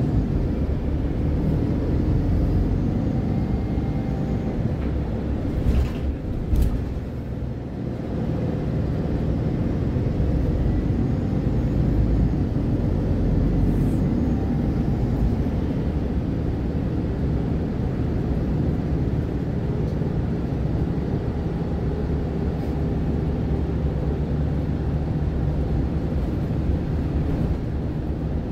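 MAN Lion's City Ü bus engine running with a steady low rumble, with a couple of short clicks about six seconds in.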